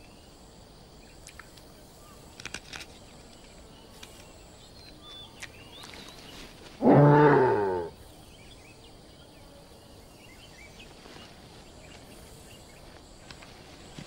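Faint outdoor background with a few clicks and small chirps. About seven seconds in comes one loud, pitched animal call lasting about a second.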